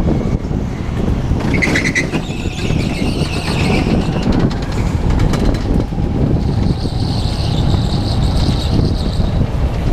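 Go-kart running at speed, heard from the driver's seat: a steady, loud low rumble. A high whine rises over it twice, briefly about one and a half seconds in, and for a few seconds near the end.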